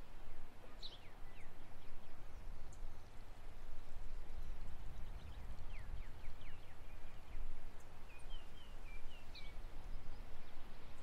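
Outdoor ambience: a steady low rumble with scattered short bird chirps, and a quick run of chirps a little before the end.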